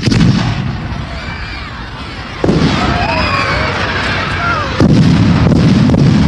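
Bombing-raid sound effect: three heavy explosions, each a sudden blast with a long low rumble, about two and a half seconds apart, with wavering pitched cries or whistles over the rumble.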